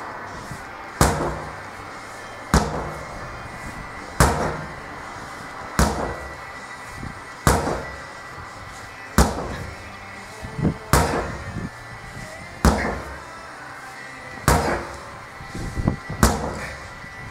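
Sledgehammer striking a large rubber tyre, ten heavy hits in a steady rhythm, one about every second and a half to two seconds, each a sharp crack with a short low thud after it.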